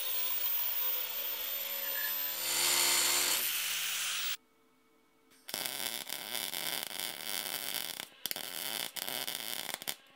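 Angle grinder with a cutoff wheel cutting a steel strip, its motor whine dropping in pitch about two seconds in, then stopping abruptly about four seconds in. About a second later a MIG welding arc crackles steadily for about four and a half seconds, with two brief breaks.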